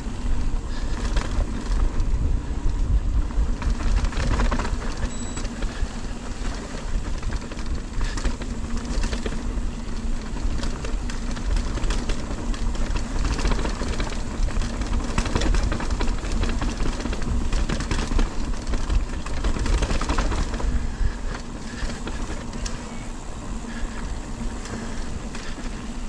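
2023 Ibis Ripmo AF mountain bike on Maxxis Assegai tyres descending a dirt trail, heard from the rider's GoPro: a steady rumble of tyres on dirt and wind buffeting the microphone, with frequent knocks and rattles as the bike goes over bumps.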